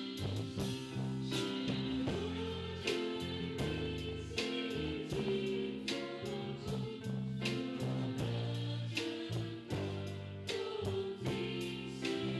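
Live worship band playing a hymn: drum kit, bass guitar, acoustic guitar and keyboard, with a steady beat.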